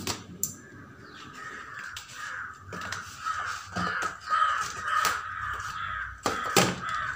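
Crows cawing over and over in a steady series. Scattered sharp clicks and scrapes of scissors cutting the packing tape on a cardboard box come through with them.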